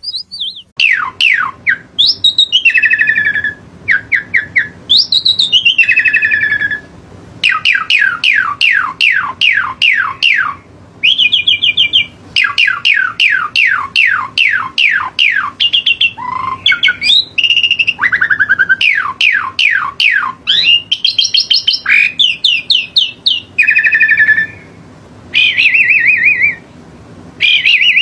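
A songbird singing loud phrases of rapid down-slurred whistled notes and short trills, several notes a second, each phrase a second or two long with brief pauses between.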